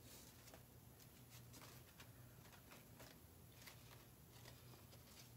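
Near silence: faint scattered rustles and small ticks of wired ribbon being uncurled by hand, over a faint low steady hum.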